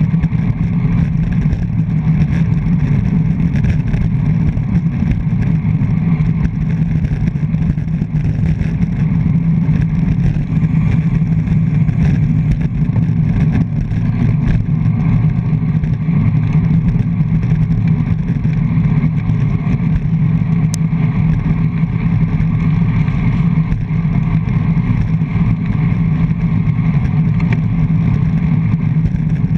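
Steady, loud wind rumble and road noise on a handlebar-mounted GoPro Hero 3+ on a road bike at racing speed, unchanging throughout.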